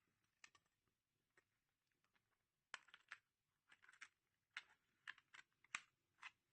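Faint, short clicks and taps of a 2.5-inch hard drive being handled and seated in its bay, a few at first and then a quick run of them from about three seconds in.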